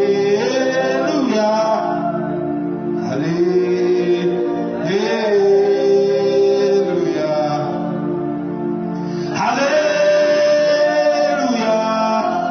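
Gospel music: a man singing long, held notes that slide from one pitch to the next, over a steady instrumental backing.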